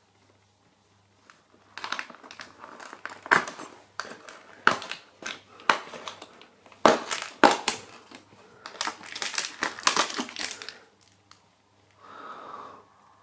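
The perforated cardboard door of an advent calendar is pried and torn open in a run of sharp crackles and tearing noises. The small plastic packet of gummy sweets inside crinkles as it is pulled out.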